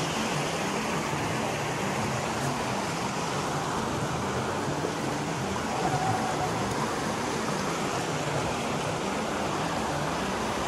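Steady rushing of a rocky mountain stream, with no change in level.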